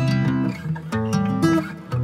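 Background music: an acoustic guitar playing chords.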